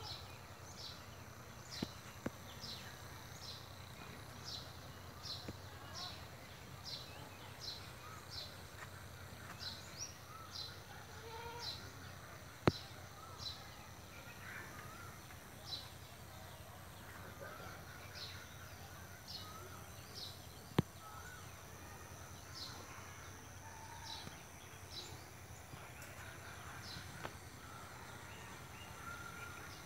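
A bird calling repeatedly in short, high chirps, roughly two a second with some gaps, over faint outdoor background noise and a low steady hum. Two sharp clicks stand out, one a little before halfway and one about two-thirds in.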